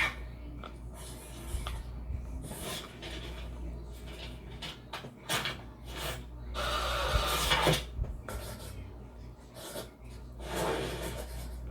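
Film sound effects of handling objects: scattered clicks and knocks with rubbing and scraping, a longer scrape in the middle and a shorter one near the end, over a low steady hum.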